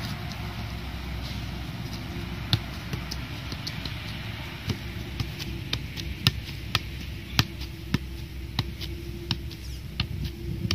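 Football being juggled: sharp taps of foot and thigh on the ball, a few scattered at first, then a steady run of about two touches a second from roughly halfway in, over a low steady outdoor rumble.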